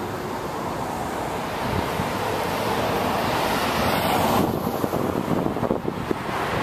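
Street traffic noise with wind buffeting the camcorder's microphone; the noise swells and then drops away sharply about four seconds in, as a vehicle passes close by.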